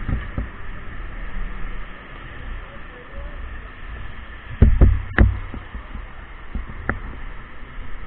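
Steady noise of wind-driven rain, with low rumble from wind on the microphone. A few sharp knocks come a little past halfway, and one more soon after.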